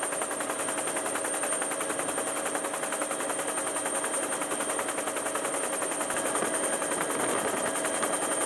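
Helicopter running, its rotor blades chopping at a rapid, even beat with a steady high whine above it.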